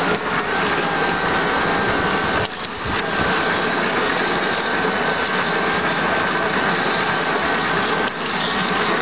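Model train running along the track with the camera on board: the motor and gearing give a steady whine over the rattle of the wheels on the rails. The noise drops out briefly twice, about two and a half seconds in and again near the end.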